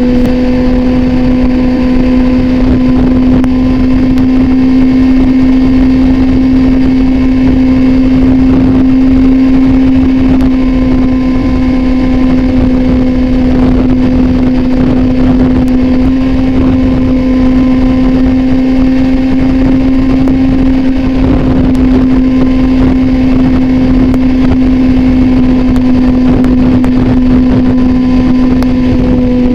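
Motorcycle with an Austin Racing aftermarket exhaust cruising at highway speed, its engine holding a steady, unchanging pitch with wind rumble underneath.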